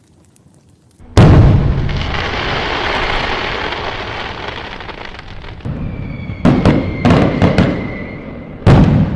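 Fireworks going off. About a second in, a sudden loud bang is followed by a long hiss that slowly fades. Then comes a quick run of sharp bangs with a steady whistle over them, and another big bang near the end.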